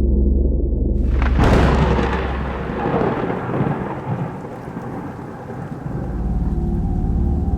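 A thunderclap crashes about a second and a half in and rolls off slowly over several seconds with a rain-like hiss. It sits over a low droning music bed, which fades under it and returns near the end.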